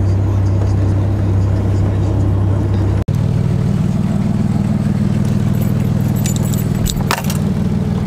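Inside a vehicle's cabin, a steady low engine and road drone as it drives across a snowy field, cut off abruptly about three seconds in. After that a steady low rumble, with a jingle of keys near the end.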